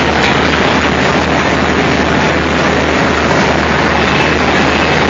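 G-scale model train running on its track, a steady loud rumble and hiss with a low hum underneath.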